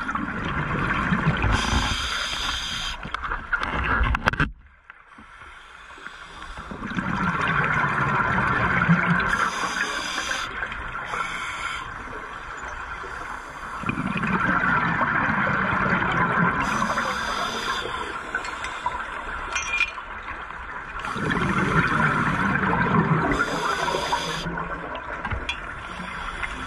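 Scuba diver breathing on a regulator underwater, several breaths in a row: a hiss through the regulator on each inhale, then a rush of exhaled bubbles, repeating every few seconds.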